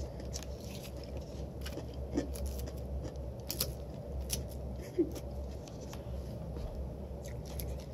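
A fork clicking and scraping against a plate as it is pushed into salad and carrots, a scattering of short sharp ticks over a steady low hum, with some chewing.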